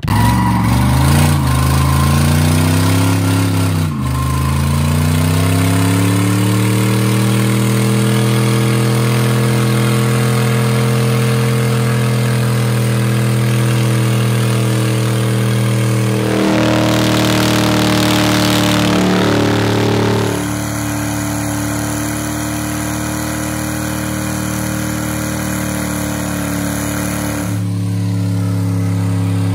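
Dodge Dakota's V8 engine held at high revs through a long burnout, the rear tyres spinning in their own smoke. The revs climb over the first few seconds, dip briefly about four seconds in, then hold steady near the limiter.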